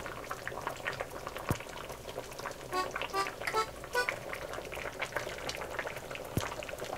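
Spicy kalguksu broth bubbling at a simmer in the pot while noodles and soup are served into a ceramic bowl, with light background music.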